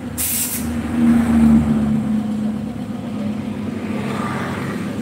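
An engine idling steadily, with a brief sharp hiss just after the start.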